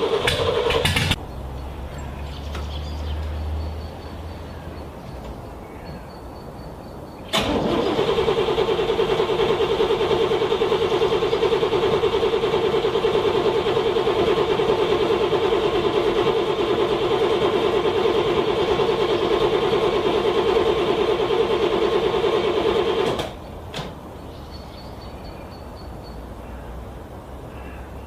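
A car engine is cranked over by its starter in extreme cold and does not start. A short burst of cranking ends about a second in. After a pause comes a long, steady cranking run of about sixteen seconds, which cuts off abruptly without the engine catching.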